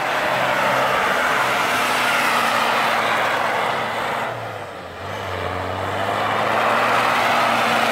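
Land Rover Discovery 300Tdi's four-cylinder turbo-diesel engine running hard under load as the truck ploughs through deep snow, its tyres churning snow. The revs drop briefly about halfway through, then pick up again.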